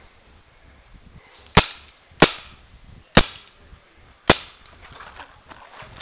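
Paintball marker firing four sharp pops, roughly one a second, starting about a second and a half in.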